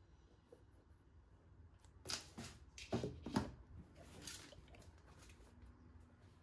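Handling noise as a pair of leather high-top sneakers is moved about by hand: a quiet start, then about two seconds in a short run of rustles and light knocks, loudest around three seconds in.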